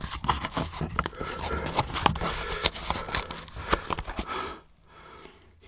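Gable-top paperboard drink carton being forced open by hand: the folded spout crinkles and tears in a dense run of crackles for about four and a half seconds, then goes quieter. The spout is stuck and won't come open.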